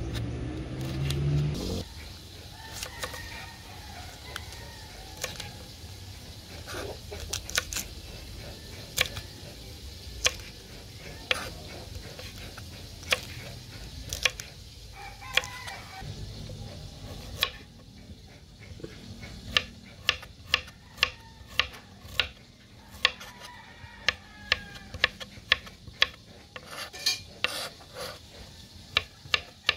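Chef's knife chopping vegetables (red chili, cabbage, carrot) on a wooden cutting board: sharp knocks of the blade on the board, scattered at first and settling into a steady rhythm of about two a second near the end. A rooster crows once at the start.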